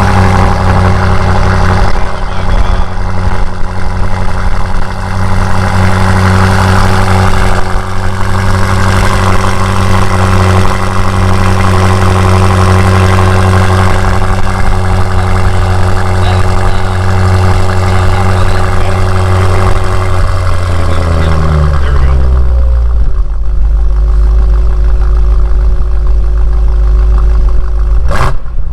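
2018 BMW M5's twin-turbo V8 just after start-up, running at a raised, steady idle. About 21 seconds in, the engine speed drops, and it settles to a lower, steady idle.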